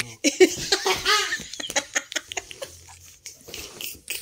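A woman laughing hard, loudest in the first second or so, then trailing off into quieter giggles and breaths.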